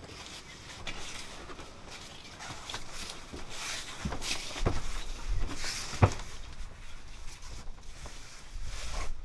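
Footsteps and knocks on a wooden plank floor, with a few sharper thuds about four to six seconds in.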